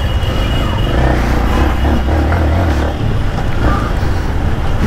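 Yamaha MT-15's 155 cc single-cylinder engine running steadily as the motorcycle rides at low speed through traffic, mixed with a low rumble of wind and road noise.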